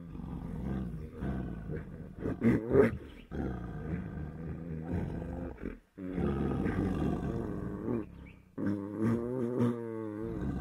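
Mating pair of tigers growling: a run of long, drawn-out growls with brief breaks between them, loudest about two and a half seconds in, and a wavering growl near the end.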